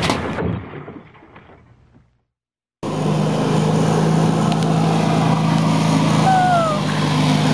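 Rumbling noise fades away to silence over about two seconds. Nearly three seconds in, a steady engine drone with a low hum starts abruptly, and two short falling whistles sound over it about six seconds in.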